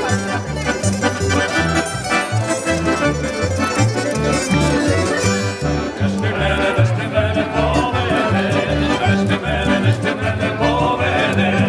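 A folk band of button accordion, fiddle, acoustic guitar and double bass playing a tune over a steady bass pulse. A man's voice joins in singing about six seconds in.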